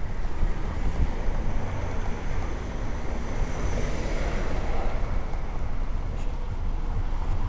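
Steady low rumble of wind on the microphone, over a faint hiss of light freezing rain hitting the umbrella overhead.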